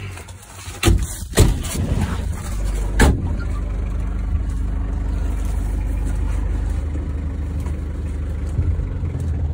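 A couple of sharp knocks about a second in, then a Hindustan Ambassador's engine running steadily with an even low hum, with one more knock about three seconds in.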